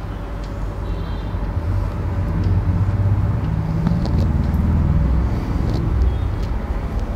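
A low rumble that builds about two seconds in and eases near the end, with a few faint short squeaks of a marker drawing on a whiteboard.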